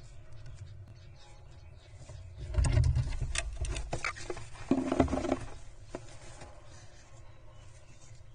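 Scratching, rustling and small knocks from jackdaws moving about inside a wooden nest box and working nest material, loudest between about two and a half and five and a half seconds in, over a low steady rumble.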